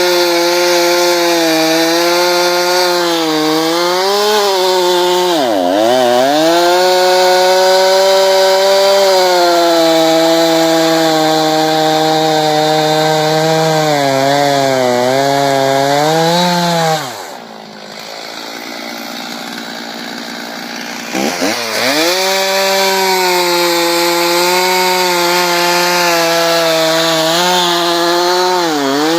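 Two-stroke chainsaw at full throttle bucking cherry logs into firewood lengths, its engine pitch sagging each time the chain bites into the wood and then recovering. A little past halfway it drops to a quieter idle for a few seconds, then revs back up into another cut.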